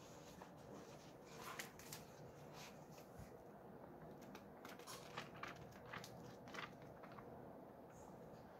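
Faint rustling and crackling of thin book pages being leafed through by hand, a handful of brief page flicks between about a second and a half in and near the end.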